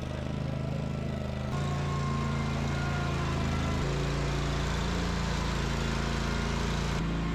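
An engine running steadily, its pitch shifting in sudden steps a few times.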